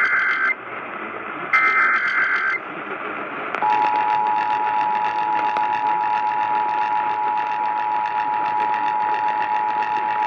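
Emergency Alert System tones from a radio broadcast: the end of one SAME header data burst, then another one-second warbling data burst, and from about three and a half seconds in the steady two-tone EAS attention signal, which holds to the end over broadcast hiss. These tones open a new alert activation, here relaying a National Weather Service severe thunderstorm warning.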